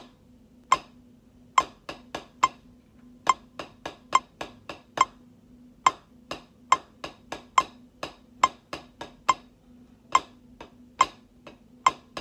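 Wooden drumsticks striking a drum practice pad in a rhythm exercise at 70 beats a minute: sharp, dry taps, some single and some in quick groups of two to four strokes.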